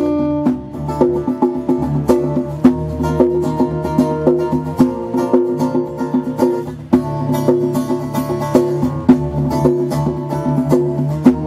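Live acoustic band playing an instrumental passage: busy strummed and plucked acoustic guitar over a bass guitar line, with sharp hand-drum beats.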